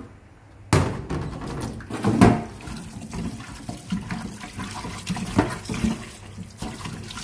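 Tap water running into a pot of pork trotter pieces in a sink as they are rinsed and rubbed by hand, with splashing and the meat shifting in the water. The water comes on suddenly under a second in.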